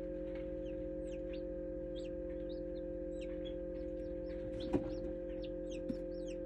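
Newly hatched chicks peeping in an incubator: a stream of quick, high, downward-sliding peeps over a steady hum, with a sharp click about halfway through.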